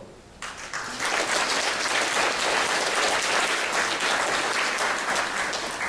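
Audience applauding, starting about half a second in and settling into steady clapping within a second.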